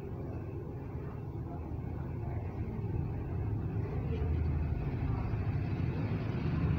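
Steady low background rumble, growing a little louder in the second half.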